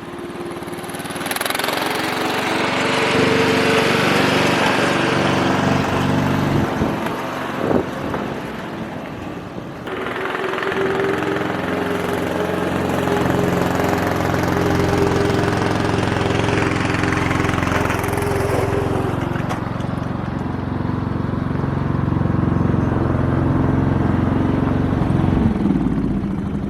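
An engine running steadily under load, easing off and picking up again a few times, with a single knock about eight seconds in.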